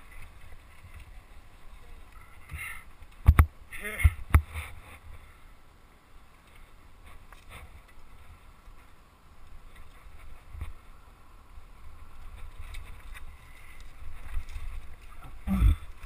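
Mountain bike riding down a rocky technical downhill trail, heard through an action camera: a steady low rumble of wind and trail noise, with hard knocks and rattles as the bike hits rocks. A cluster of the loudest knocks comes about three to four seconds in, and another near the end.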